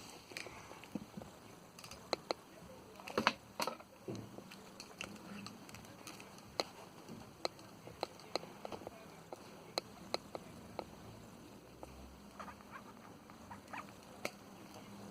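Scattered light clicks, taps and rustles of small objects being handled, unevenly spaced, with a cluster of louder knocks about three seconds in.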